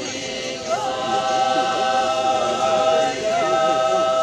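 Lithuanian folk choir singing unaccompanied, holding one long note that comes in about a second in, with crowd chatter beneath.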